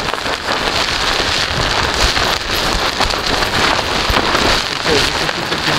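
Heavy rain drumming on a tent's fabric, heard from inside the tent as a loud, dense, steady patter.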